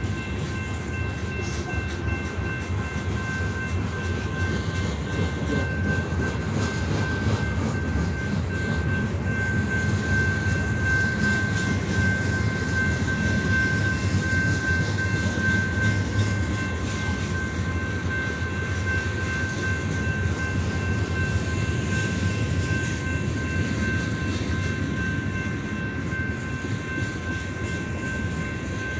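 Freight train of covered hoppers and tank cars rolling past, a steady rumble of steel wheels on rail with clickety-clack, loudest in the middle. A steady high-pitched ringing tone sounds over it.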